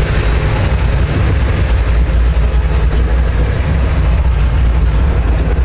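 Powerboat engine running with a steady, loud low rumble.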